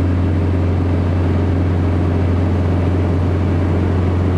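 Socata TB-9 Tampico's four-cylinder Lycoming piston engine and propeller droning steadily, heard from inside the cabin.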